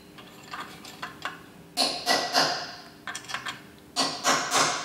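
Hammer striking a punch to tap a bearing carrier with new oil seals into a Johnson 30 HP outboard gearbox housing: two quick runs of metal-on-metal taps, about four in each, around two seconds in and again near the end, with a few lighter clicks between.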